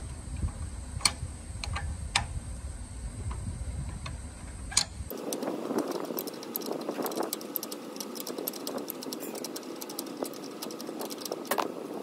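Metal-on-metal clicks from a 19 mm spanner and pliers wrench turning off the nut that holds an electronic expansion valve's motor head to its body. There are a few sharp clicks over a low rumble at first, then from about five seconds in a fast, irregular run of clicks and ticks as the head is wound off.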